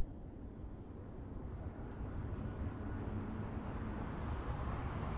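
An insect calling in short, evenly pulsed high trills, twice, over a steady low rumble.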